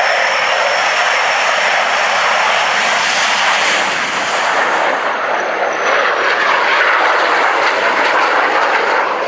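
BAC Canberra PR9's twin Rolls-Royce Avon turbojets at full power on take-off and climb-out. A steady high whine rides over the engine noise, dips slightly and fades about six seconds in.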